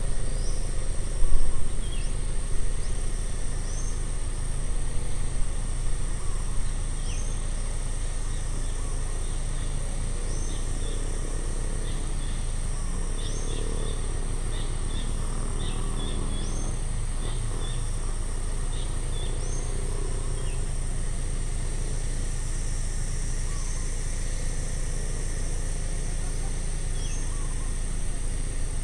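Outdoor ambience: a steady high insect drone, a bird repeating a short chirp every few seconds, and a steady low rumble underneath.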